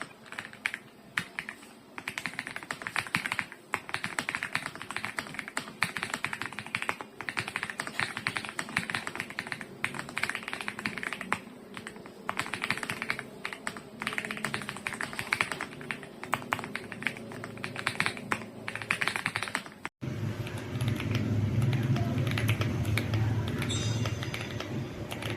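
Typing on an AULA F75 gasket-mount mechanical keyboard: a fast, irregular clatter of keystrokes. Near the end the sound cuts abruptly to a different take, where fainter keystrokes sit over a low hum.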